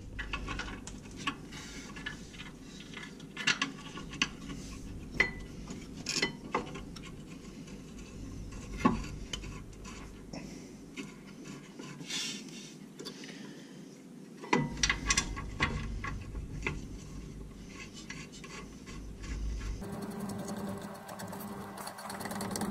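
Scattered metallic clinks and knocks of rear disc-brake parts (rotor, caliper, hardware) being handled and fitted by hand. A steady low hum starts near the end.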